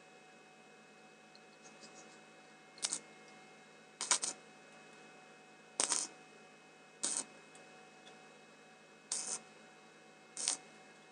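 Arc-welding electrode struck in six short crackling bursts, one to two seconds apart, as small tack welds are laid on a steel piece; a faint steady hum underneath.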